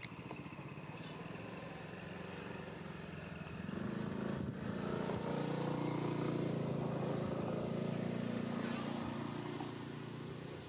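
A passing motor vehicle's engine: a low running drone that swells from about four seconds in, is loudest in the middle, and fades away near the end.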